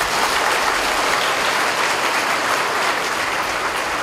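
Large audience applauding, dense clapping that holds steady.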